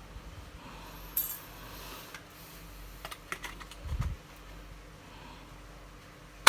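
Small clicks and taps of hand work on a camera and tools: a short scrape about a second in, a quick run of light clicks around three seconds, a dull thump just after, and one sharp loud click at the end.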